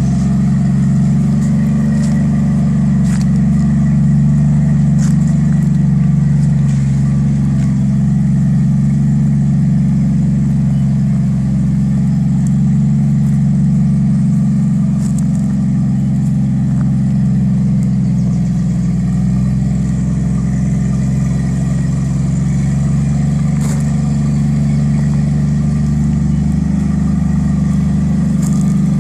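Forklift engine running steadily, a deep even hum, with a few light knocks here and there.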